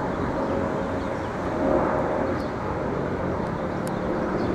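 Boeing 787 airliner's jet engines on approach: a steady rumbling noise with a faint hum of tones in it.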